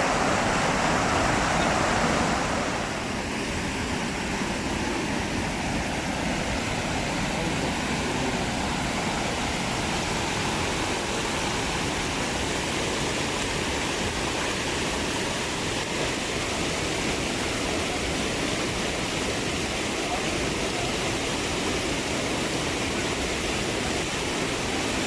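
Steady rushing of flowing water, a little louder for the first two seconds or so and then even.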